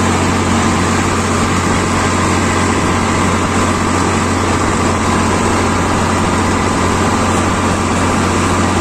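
Swaraj 855 tractor's diesel engine running steadily under way on the road, a constant deep hum with a steady rush of wind and road noise over it.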